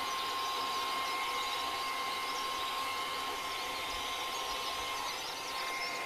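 Blow-dryer on its lowest speed and cool setting, blowing a steady rush of air with a constant whine, used to push wet acrylic paint across a canvas in a Dutch pour.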